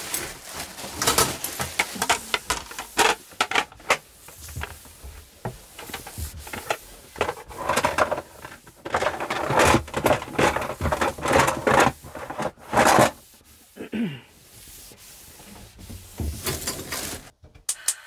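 Irregular clatter and rustling of dishes, utensils and a cloth being handled while clearing up a small caravan kitchen, with many sharp knocks and scrapes.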